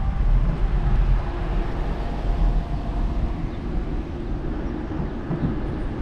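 Low rumble of wind on a bike-mounted camera's microphone mixed with nearby traffic, easing off about halfway through as the bicycle slows to a stop at an intersection.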